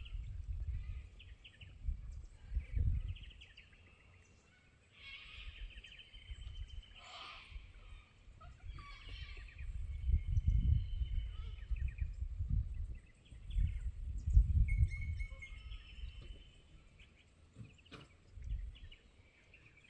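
Wind buffeting the microphone in uneven gusts, with bush birds chirping and trilling in the background, including a few short whistled notes.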